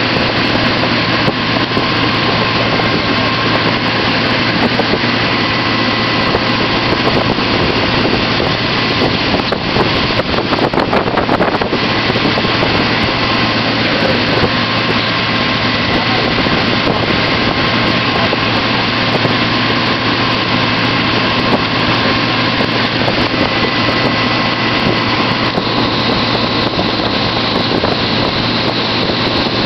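Motorboat towing at speed, its engine running steadily under loud wind on the microphone and water rushing in the wake.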